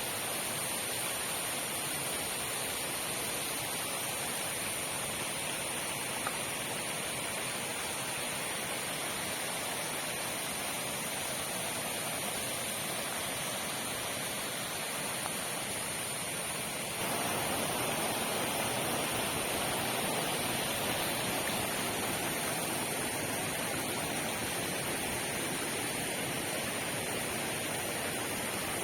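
Waterfall: a steady rush of falling water that turns louder and fuller suddenly about seventeen seconds in.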